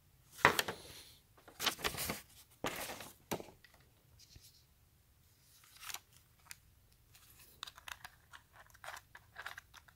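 A large paper instruction sheet rustling and crinkling as it is handled, in three loud bursts, then a run of small clicks and scrapes from about halfway on as the plastic grip of a Daisy Powerline 426 CO2 BB pistol is worked with the fingers.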